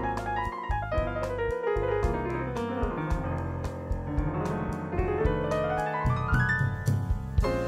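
Background music led by piano, with a steady beat and a run of notes sweeping down and then back up in the middle.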